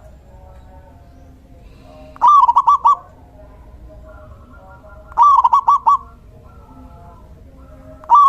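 Male zebra dove singing: two loud cooing phrases about three seconds apart, each a quick run of four or five short notes, with a third phrase beginning right at the end. Other birds chirp faintly in the background.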